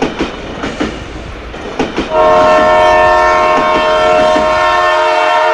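Toy train running on plastic track, its wheels clicking over the rail joints, then about two seconds in a loud, steady train-horn sound sets in and holds, a chord of several pitches.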